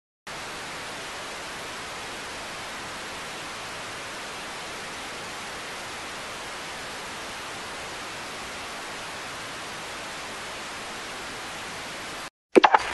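Steady hiss of static from VHS playback with a screen full of snow. About twelve seconds in it cuts off, and a quick burst of sharp, loud clicks follows.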